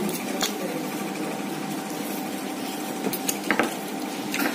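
Steady mechanical hum of a restaurant dining room, with a few short clicks of plates and dishes, mostly near the end.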